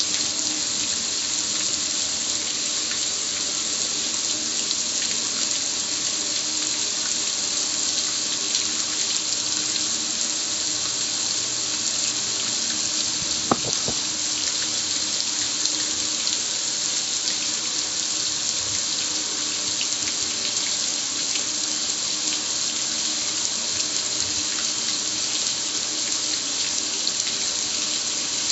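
A steady spray of water hitting the metal lid and front panel of a gas grill, a constant splashing hiss. One sharp click about halfway through.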